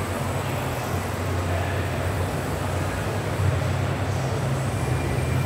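Car engine idling steadily, a low, even sound with no change in revs.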